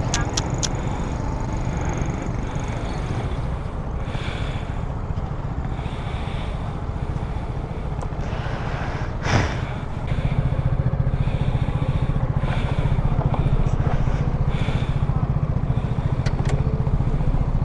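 Motorcycle engine running with road and wind noise, a brief loud knock about nine seconds in, and the engine growing louder from about ten seconds in.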